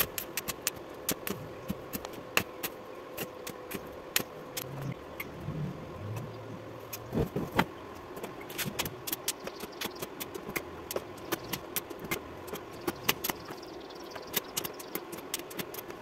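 Stick arc welding on a wheelbarrow's steel frame with an inverter welder: dense, irregular crackling and sputtering of the arc over a faint steady hum.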